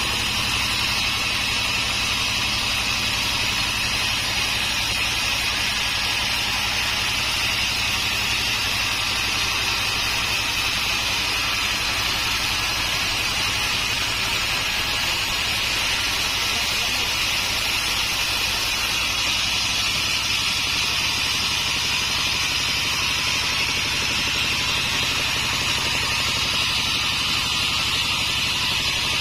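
Homemade sawmill sawing through an acacia log: a steady, unbroken high hiss of the blade in the wood over a low motor hum.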